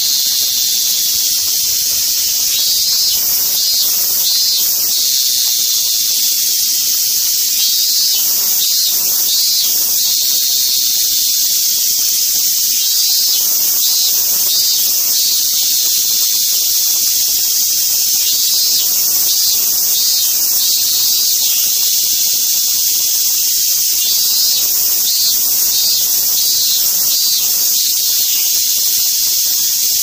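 Cicadas singing: a loud, steady, high-pitched buzz, with a pulsing phrase coming in every five or six seconds.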